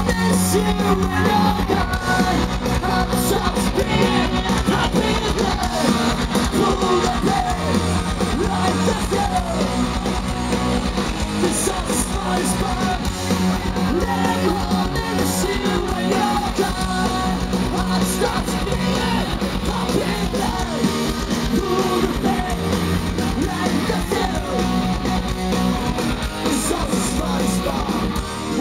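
Punk rock band playing live: electric guitars, bass and drums with shouted, sung vocals, loud and continuous throughout.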